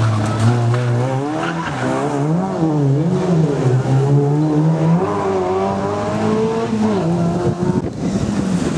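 Škoda Felicia rally car's engine revving hard through a tight chicane. The pitch climbs and drops again and again as the driver lifts and changes gear.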